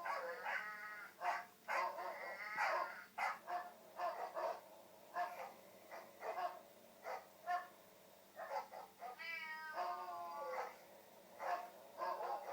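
Cats meowing over and over in short calls, with one longer, drawn-out meow about nine seconds in, played back from a cat-and-dog noise compilation video through a device speaker.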